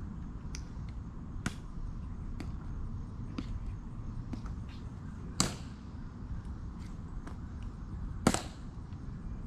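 Sharp clicks of the tomb guards' metal-tapped shoes on hard pavement, steps about a second apart, with two louder, harder clacks, one about halfway through and one near the end.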